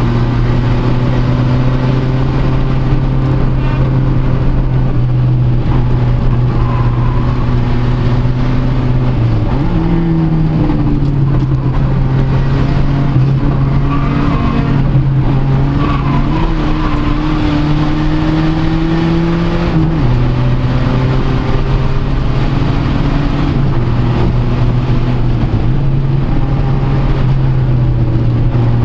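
Fiat Uno Turbo i.e.'s turbocharged four-cylinder engine pulling hard, heard from inside the cabin, running at fairly steady revs. Its pitch steps up about ten seconds in and drops back about ten seconds later.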